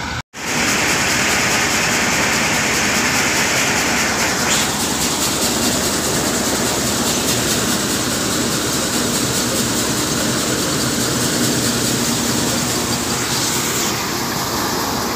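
NJT soybean thresher running while threshing soybeans: a loud, steady mechanical rush and rattle. The sound drops out for an instant just after the start.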